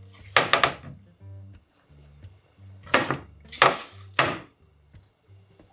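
Hands gathering chopped vegetables on a wooden cutting board: a few short scraping, clattering sounds about half a second in and again around three to four seconds in, over quiet background music.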